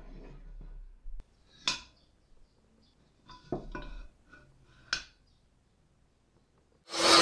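A few light metal clinks and taps as a steel square is set against a cut flat steel bar. Near the end an angle grinder switches on and runs up to full speed almost at once, far louder than the clinks.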